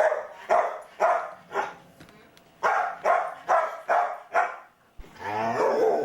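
Dog barking in two quick runs, about two barks a second, with a short pause between them and a longer drawn-out call near the end. The barking greets the mail carrier's arrival.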